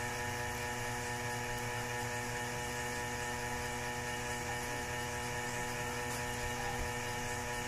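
A steady electrical hum, several fixed tones over an even hiss, unchanging throughout.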